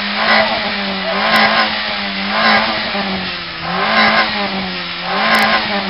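Citroën Xsara Picasso's exhaust with the engine held at high revs for an exhaust-noise contest, the note swelling and easing slightly about every second or so.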